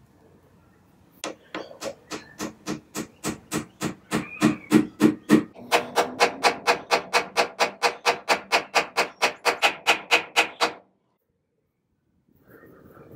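A small hammer taps an oak dowel into a drilled hole in a wooden chair leg. The strikes come about three a second at first, then quicker, about five a second, and stop suddenly near the end.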